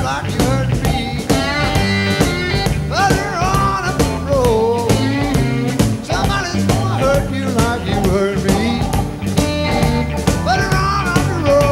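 Background rock music with a steady drum beat, a bass line, and a lead melody that slides and bends in pitch.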